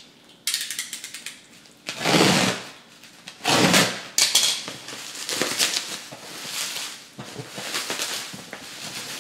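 Plastic packaging and bubble wrap being cut with a box cutter and pulled open by hand, crinkling and rustling. There are two loud tearing rustles about two and three and a half seconds in, then continuous crackly crinkling.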